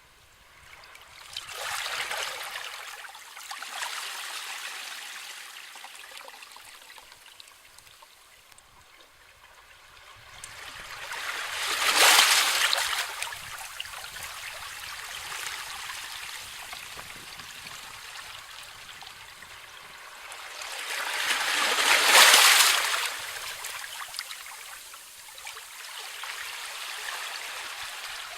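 Sea waves breaking and washing up the shore in slow surges. Two smaller swells come early, the two largest break about twelve and twenty-two seconds in, and a softer hissing wash runs between them.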